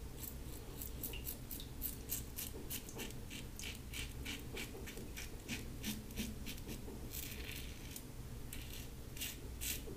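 LASSCo BBS-1 stainless steel safety razor with a Gillette Silver Blue blade rasping through two days of stubble in short, quick strokes, about three a second, with a few slower strokes near the end.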